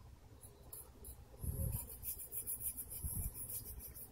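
Diamond needle file rasping in quick strokes along the ball groove of a hardened-steel MGN15 linear guide rail, a high scratchy sound that starts about a second and a half in, with a few dull knocks underneath. The groove is being filed out so that a binding carriage will run freely.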